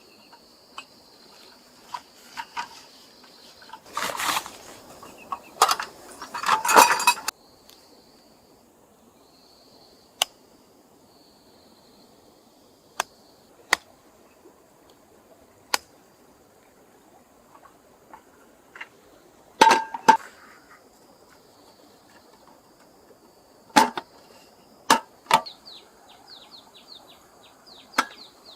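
Handling sounds: scattered sharp clicks and knocks, with two bursts of rustling or scraping about four to seven seconds in, over an on-and-off high, thin trill. Near the end comes a quick run of short, high chirps.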